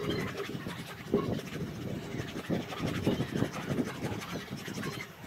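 A small white eraser block being scrubbed in short, quick back-and-forth strokes over the leather of a Red Wing 877 moc toe boot in Oro Legacy leather, working off indigo dye transfer (crocking).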